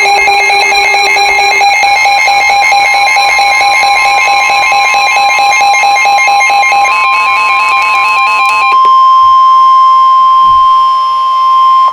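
Emergency alert tones between weather warnings. First a rapidly warbling electronic alarm of several tones alternating quickly, for about nine seconds, then a steady single alert tone for about three seconds that cuts off abruptly.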